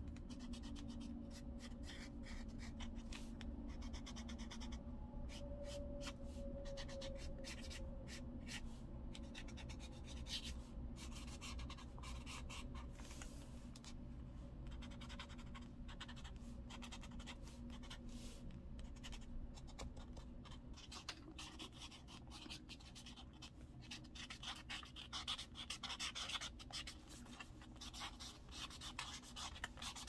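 Felt-tip pen strokes scratching and rubbing across journal paper in quick, irregular strokes, louder near the end, over a steady low hum.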